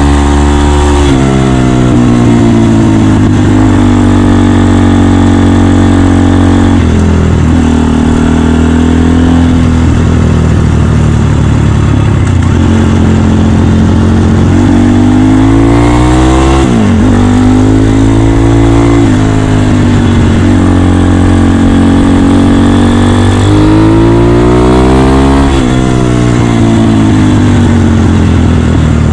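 Honda Dax 150cc single-cylinder four-stroke engine heard from the rider's seat while riding, its note climbing under throttle and dropping back about five times as the bike changes gear and eases off.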